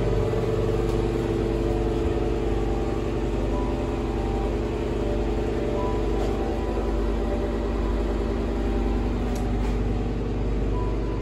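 Bathroom exhaust fan running with a steady hum, cut off abruptly just after the end.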